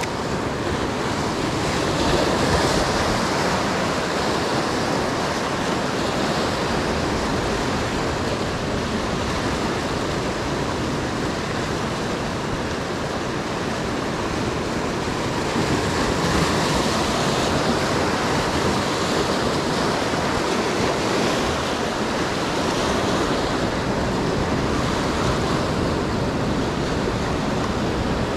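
Sea surf washing over a rocky shoreline, a steady wash that swells louder now and then as waves break over the rocks.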